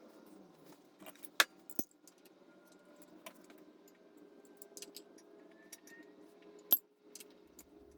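Metal tools and small engine parts being handled, giving scattered light clinks and taps. A few sharper, louder clinks come about a second and a half in and again near the end.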